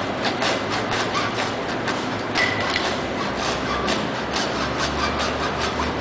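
Hand saw cutting through the leg of a sculpture, in a steady run of back-and-forth strokes, about two to three a second.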